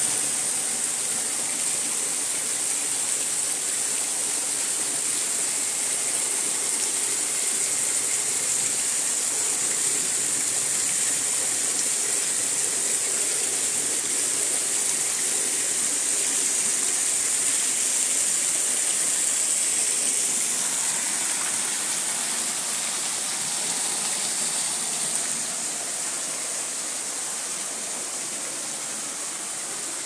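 Rushing water of a waterfall, a steady hiss that eases a little about 25 seconds in.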